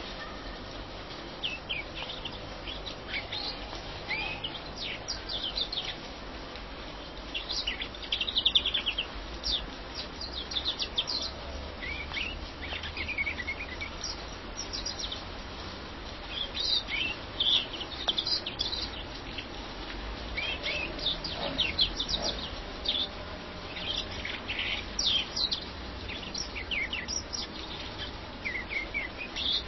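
European greenfinch singing: phrases of twittering chirps and fast trills, repeated on and off with short pauses.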